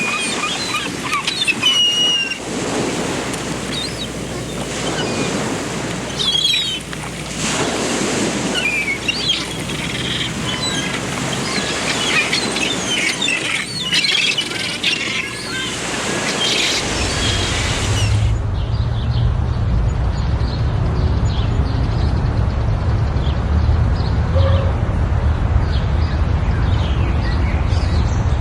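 Many small birds chirping over a steady rushing noise. About two-thirds of the way through, the sound changes abruptly to a low rumble with only faint chirps left.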